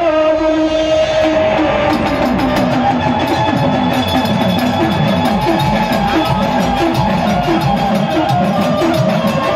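Gujarati devotional folk music: a dakla, the double-headed Mataji drum, played in a steady pattern of about two strokes a second, each stroke swooping in pitch, over a sustained held tone. The drum pattern comes in about two seconds in.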